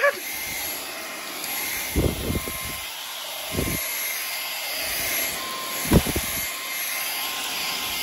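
Kyvol V20 cordless stick vacuum running on deep-pile shag carpet: a steady whir of its brushless motor with a faint whine, and a few dull low knocks. The owner hears these as debris picked up from the carpet clunking around inside.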